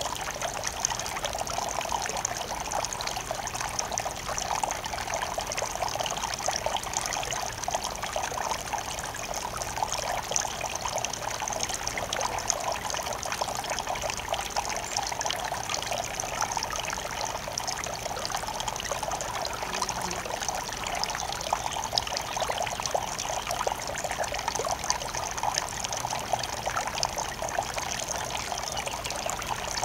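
Small garden fountain's water trickling and splashing steadily.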